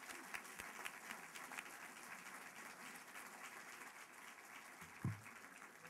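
Audience applauding, faint and gradually dying down, with a short low thump about five seconds in.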